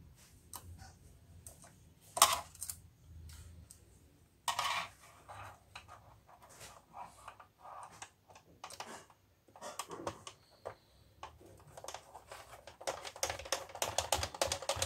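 Plastic clicks and rattles of an opened Epson inkjet printer's parts being handled and worked with a tool: scattered clicks, a sharp one about two seconds in, a clatter about halfway, and a quick run of clicks near the end.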